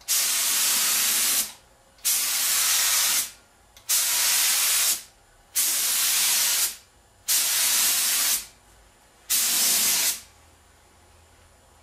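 Air-driven gravity-feed spray paint gun hissing in six bursts of about a second each, one for each pass of paint across the panel, with short pauses between passes as the trigger is released.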